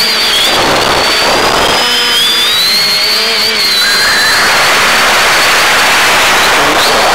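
X550AIOP quadcopter's electric motors and propellers whining, several high tones wavering and crossing as the throttle shifts. A rushing air noise grows louder about four seconds in as the quad speeds up.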